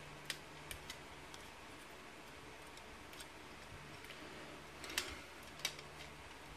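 Hard plastic parts of a small transforming robot toy figure being handled and snapped into place. There are about four light clicks in the first second and a half, then two sharper snaps about five seconds in.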